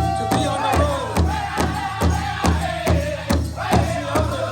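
Music with a steady, fast drum beat, a little over two beats a second, and a melody line that slides in pitch over it.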